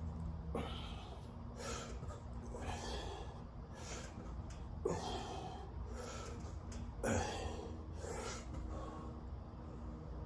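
A person breathing hard through nose and mouth while doing sit-ups, with short sharp breaths about once a second over a steady low hum. Two of the breaths, about five and seven seconds in, are louder and sharper.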